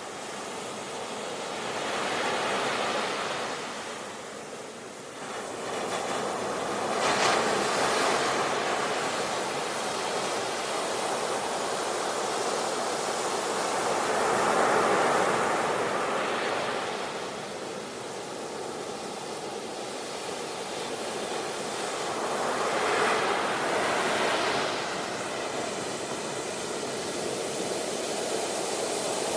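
Ocean surf on a beach: a steady wash of water noise with waves surging in and falling back every several seconds.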